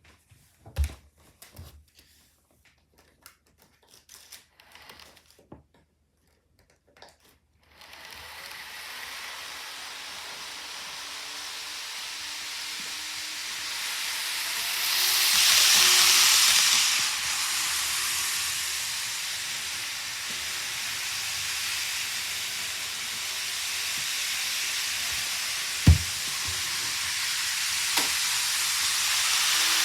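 N-gauge model train running on its track: a steady whirring hiss with a faint motor whine. It starts about eight seconds in after a few small clicks and swells midway. Two sharp clicks come near the end.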